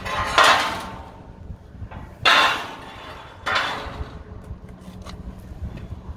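Steel loading ramps of a car-hauler trailer being set into place, clanking three times, each a sharp metal hit that rings briefly and fades.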